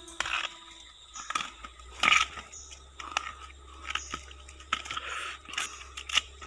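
Bamboo shoot being peeled by hand: its tough outer sheaths crunch, tear and snap in irregular cracks, the loudest about two seconds in.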